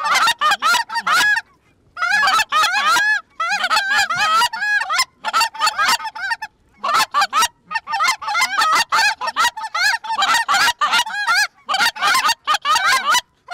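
Goose calls blown hard and fast: runs of loud, clipped honks and clucks calling to a flock of Canada geese, broken by short pauses a few times.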